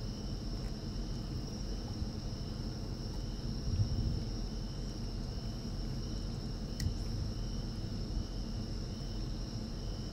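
Insects singing steadily in two high-pitched trills, the lower one pulsing on and off, over a low outdoor rumble, with one faint click about seven seconds in.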